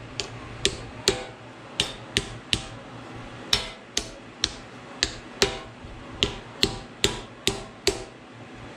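Hammer tapping metal on metal at the pinion of a Ford 8.8 rear differential: a run of sharp, ringing taps, roughly two a second with short pauses between groups.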